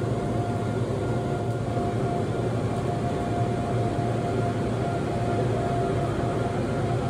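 Seoul Subway Line 2 train running, heard from inside the car: a steady rumble with a constant steady tone over it.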